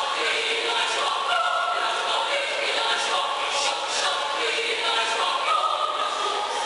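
Mixed choir of men's and women's voices singing a cappella, moving through held chords.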